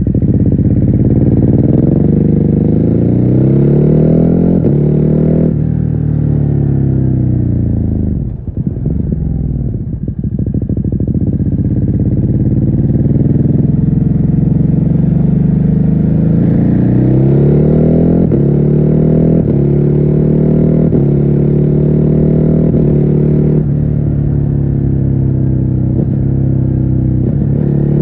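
Stock Ducati Hypermotard 950's 937 cc L-twin engine pulling up through the gears, revving and dropping at each upshift. It eases off for a couple of seconds about a third of the way in, then pulls through the gears again. Muffled, heard from a phone inside the rider's backpack.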